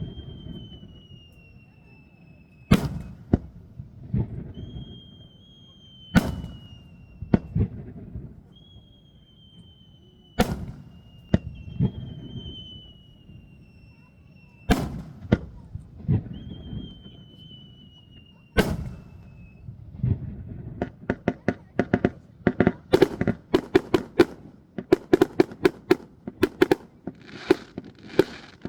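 Fireworks display. Large aerial shells burst one at a time every few seconds, with high whistles falling slowly in pitch between the bangs. From about two-thirds of the way through, a rapid barrage of many quick bursts and crackles takes over.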